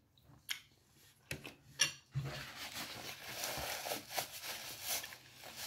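A few wet mouth clicks as fingers are licked and the lips smack, then a paper napkin rustling and crumpling against the face for about three seconds as the mouth is wiped.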